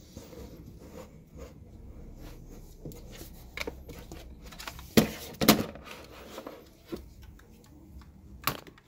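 Hard plastic clicks, knocks and scraping of a Makita 18 V battery pack being unlatched and slid off a cordless hammer drill, with two sharp clacks about five seconds in the loudest.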